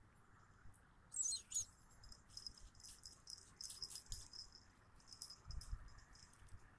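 A dog running through dry fallen leaves, the leaves crackling and rustling under its paws: a sharp burst about a second in, then a string of crackles that dies away shortly before the end, with a few soft low thumps.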